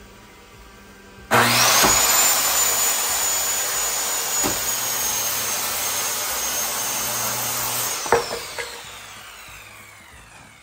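Electric power saw starting with a rising whine and cutting through LVL beam lumber for about six and a half seconds. The blade then winds down with a long falling whine once the trigger is let go, and a few knocks sound as the cut piece comes free.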